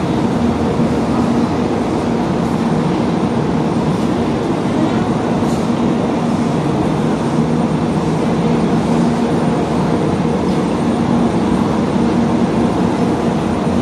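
Steady drone of a parked Shinkansen train's onboard equipment running, a constant hum with one low tone held unchanged.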